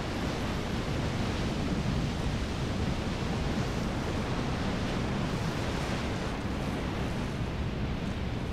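Steady rushing noise of churning sea water with a low rumble underneath, from the upwelling over an underwater volcanic eruption.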